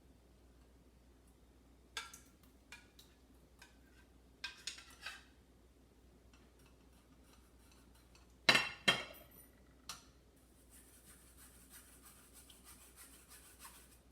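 Kitchen utensils clinking against a bowl and strainer in a few separate knocks, the loudest a double knock about eight and a half seconds in. Then a spoon rubs yogurt through the strainer in quick, faint, repeated scrapes.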